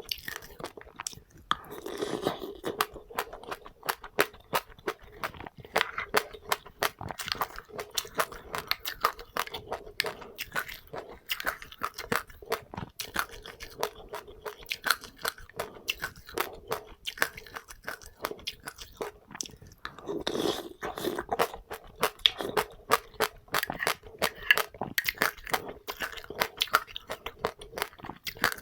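Close-up chewing of passionfruit and crunchy seeds: many rapid, crisp crunches with no pause.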